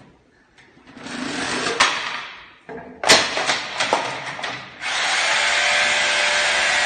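Rustling and a few sharp knocks, then about five seconds in an electric motor starts and runs steadily with a loud, even whirring hiss.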